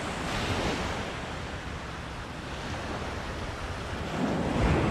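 Small ocean waves breaking and washing up a sand beach. One wash swells about half a second in, and a louder one near the end.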